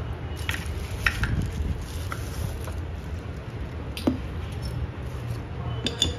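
Small metal heating platforms and stencils being handled and set down on a work mat: a handful of separate light clicks and clacks, over a steady low hum.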